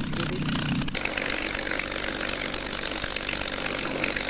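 Supermarine Spitfire's piston engine running on the ground with the propeller turning: a steady drone with a fast, even pulse. A few sharp clicks sound in the first second before the engine note settles.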